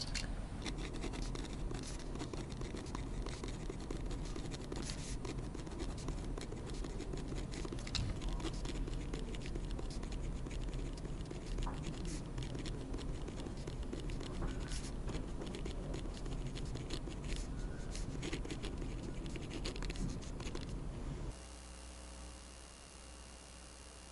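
A pen writing on paper: steady scratching with many small ticks of the tip on the sheet. About three seconds before the end it cuts off suddenly to a fainter steady hum.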